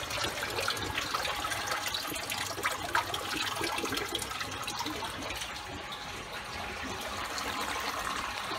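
Steady rush of water pouring through a reef aquarium's sump and drain plumbing, with a few faint clicks.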